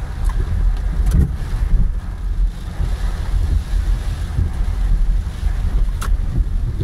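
Hurricane rain and wind against a slowly moving car, heard from inside the cabin. A steady deep rumble runs under a hiss of rain, with two sharp knocks, one about a second in and one near the end.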